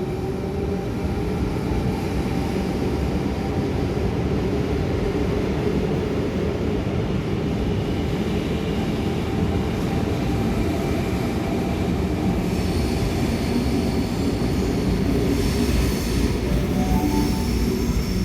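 Electric suburban train moving along the platform with a steady low rumble. About two-thirds of the way in, a high, steady squeal of steel wheels on the rails joins it.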